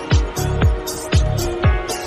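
Background music with a steady beat: a deep kick drum about twice a second under sustained synth-like notes and crisp high percussion.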